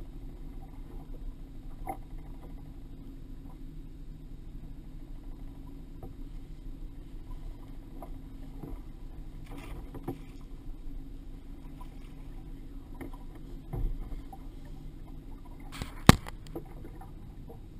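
A steady low rumble of a small fishing boat on choppy open water, with water slapping against the hull. There is a dull thump about three-quarters of the way through, and a sharp knock near the end.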